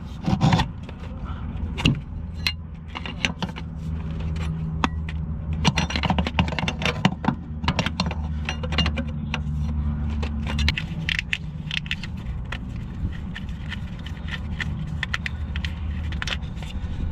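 Wrench clinking and scraping against a Jeep 4.0L's oil pressure sending unit as the sender is worked loose, with many irregular sharp metal clicks and taps.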